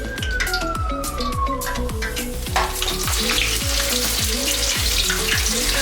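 Batter-coated lobster tail frying in hot vegetable oil, a steady sizzle that grows denser after a short knock about halfway in. Under it, a steady low beat repeats throughout.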